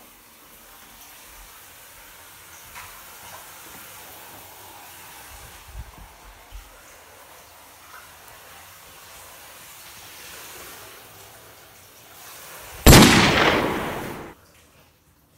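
A low hiss, then near the end a sudden loud burst of noise that fades away over about a second and a half and cuts off.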